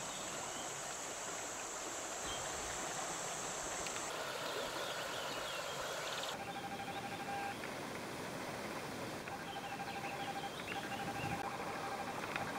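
River water running over shallow stones, with a few short bird chirps. The background shifts abruptly twice, with a steady high hiss in the first few seconds.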